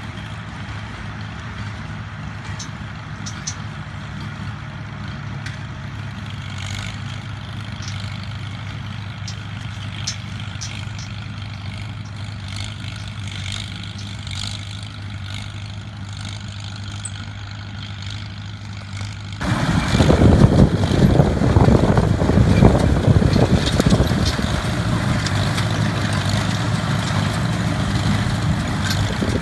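Farmall 350 tractor engine running steadily. About two-thirds of the way through, a much louder, rough noise sets in suddenly and carries on.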